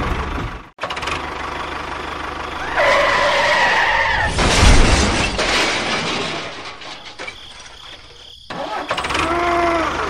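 Small engine running, broken by abrupt cuts between clips, with a short wavering pitched sound about three seconds in and fainter pitched lines near the end.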